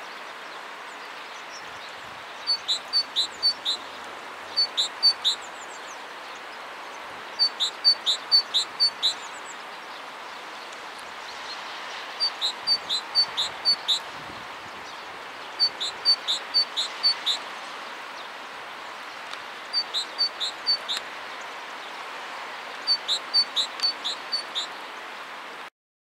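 Great tit singing: seven phrases, each of about five to eight quick, high notes repeated in a run, coming every few seconds over a steady background hiss. The sound cuts off just before the end.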